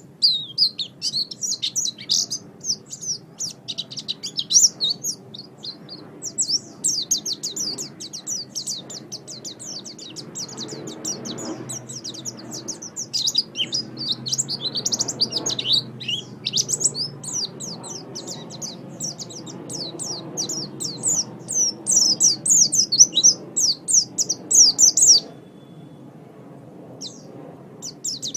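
White-eye (pleci) singing a long, rapid twittering song of high, thin chirping notes. The song breaks off near the end, leaving a few scattered notes.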